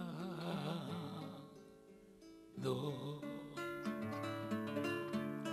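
A man's singing voice holds a note with wide vibrato that fades out about a second in. After a short near-quiet pause he sings one more brief phrase, then an acoustic guitar picks single ringing notes through the rest.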